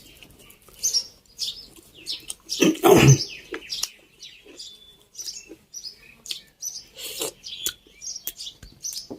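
Small birds chirping repeatedly in the background, with one brief, louder sound about three seconds in.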